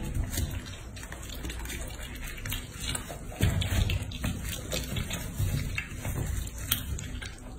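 A small pig chewing and slurping a juicy peach, with many quick wet smacking and crunching clicks. From about three seconds in there are also a few louder low thumps.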